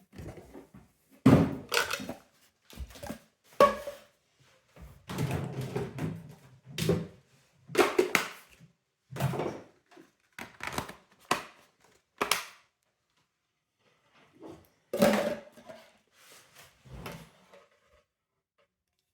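Plastic parts of a Primaster PMFS37 window vacuum cleaner being handled while it is taken apart: a string of separate knocks and clicks with short rubbing and scraping sounds between them, and a pause of about two seconds around the middle.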